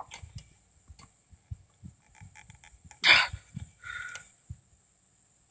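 Scattered light knocks and clicks of hands and a tool working at a fastening on a lawnmower's engine, with one louder rustling scrape about three seconds in and a short squeak just before four seconds.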